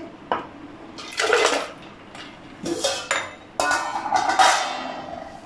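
Ice cubes tipped from a ceramic plate into a glass blender jar, clattering and clinking in three or four bursts, the last one ringing briefly.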